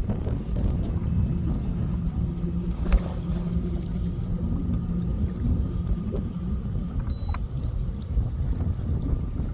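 Low rumble with a steady hum from a bass boat on the water, with a sharp click about three seconds in and a short high beep about seven seconds in.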